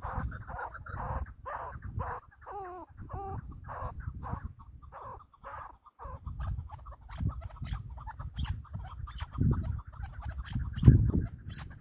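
Chukar partridges calling: a long run of quick, repeated clucking notes, about three or four a second, some of them bending down in pitch. A low rumble runs underneath and swells twice near the end.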